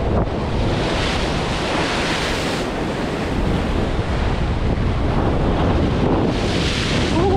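Sea swell surging and breaking over a rock ledge, whitewater washing across the rocks, with strong wind buffeting the microphone. The wash swells louder about a second in and again near the end.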